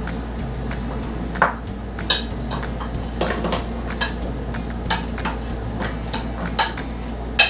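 Metal spoon clinking and scraping on a ceramic plate as food is served, in irregular clinks with a few sharper ones, over a faint steady low hum.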